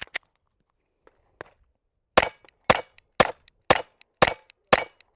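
Glock 44 .22 LR pistol firing: a single shot at the start, then after a pause about six shots in steady succession, about two a second.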